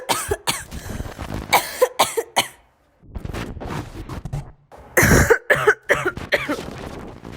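A person coughing in repeated bouts: quick runs of harsh coughs with short breaks for breath, the loudest bout about five seconds in, tapering off near the end.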